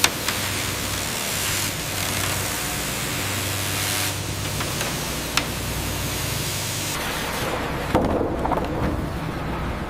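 Sawmill machinery running with a steady, noisy rumble and low hum, broken by a few sharp knocks: one at the start, one about five seconds in, and one about eight seconds in.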